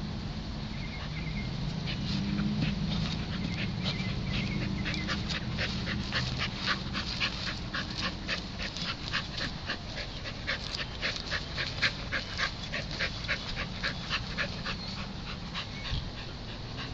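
A dog panting hard and fast, about three or four breaths a second, starting a couple of seconds in and stopping near the end.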